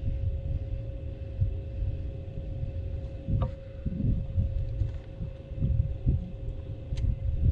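Wind buffeting the microphone in irregular low thumps, over a steady hum from the bass boat's electric trolling motor. Two sharp clicks, about three and a half seconds in and near the end.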